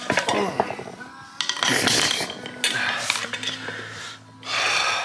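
Metal tire spoons scraping and clinking against a dirt-bike wheel rim as a stiff tire is levered over it by hand, in irregular bursts.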